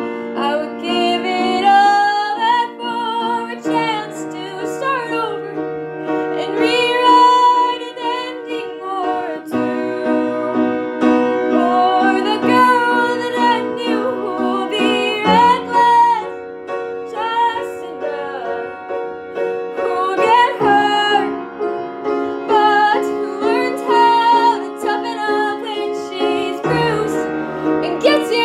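A girl singing a slow song with a gliding melody while accompanying herself on piano, the held chords changing about every five to six seconds.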